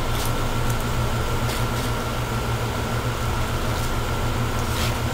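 Steady low hum of a room air-conditioning unit, with a thin steady whine above it. Faint crinkles of a plastic fork wrapper being torn open come about one and a half seconds in and again near the end.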